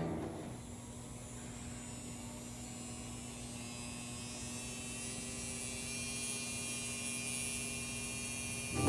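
Small DC motor spinning under PWM drive from an IBT-2 motor driver, giving a steady electrical hum; a high whine joins about five seconds in.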